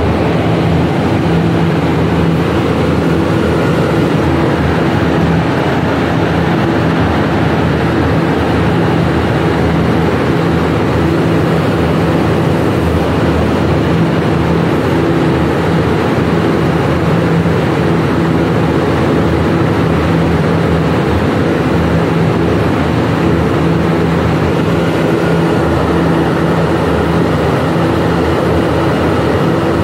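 Humidification plant's air system running around a rotary drum air filter: a steady, loud drone of rushing air and machinery with a constant low hum.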